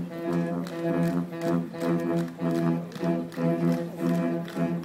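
Marching band playing: brass chords over percussion keeping a steady beat of about two a second.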